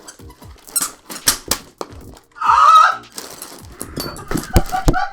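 Small rubber toy ducks tumbling and knocking together, with squeaky-toy squeaks. The longest and loudest squeak comes about two and a half seconds in, with a few short ones near the end.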